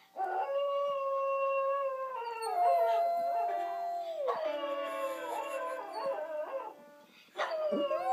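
Small wire-haired terrier howling in long, drawn-out notes that hold a pitch and then slide to another. The howling breaks off about seven seconds in and starts again half a second later.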